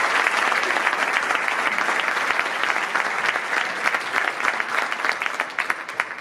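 Audience applauding. The clapping thins to scattered claps and dies away near the end.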